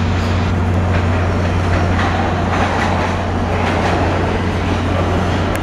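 New York City subway 5 train approaching the platform through the tunnel: a steady rumble of wheels on rail that swells in the middle, over a constant low hum.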